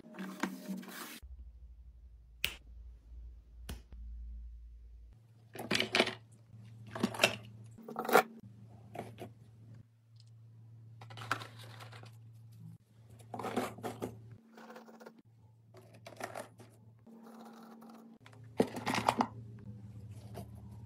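Hands handling bathroom supplies: woven storage baskets set into a drawer, a cardboard box of cotton swabs, and small toiletries dropped into the basket compartments. The result is a series of short rustles, scrapes and light clatters with brief pauses between them.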